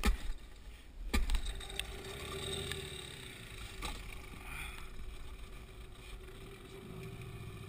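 Two sharp knocks, then from about two seconds in a small outboard motor running steadily at idle on an inflatable boat.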